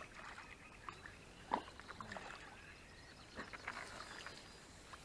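Faint splashing of a small hooked fish at the water's surface as a landing net is pushed under it, with light clicks and a single sharp knock about one and a half seconds in.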